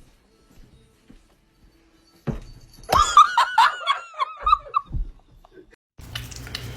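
A high-pitched burst of giggling laughter, a quick run of short rising-and-falling notes, starting about two seconds in and lasting about two and a half seconds. Music starts near the end.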